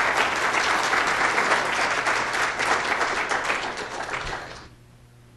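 Audience applauding: many people clapping at once, fading away a little over four seconds in.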